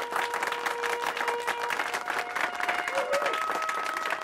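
Dense clapping from a crowd over music. The music has long held notes that move to new pitches about two and three seconds in.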